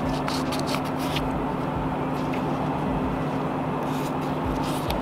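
A steady mechanical hum with a low drone, with a few faint scratching strokes of hand sanding on a primed wheel rim using 800-grit sandpaper.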